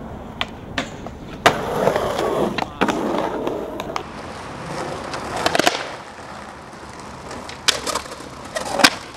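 Skateboard wheels rolling on concrete, broken by sharp clacks of the board popping and landing several times. Near the end the board scrapes along a concrete ledge, then lands with a loud clack.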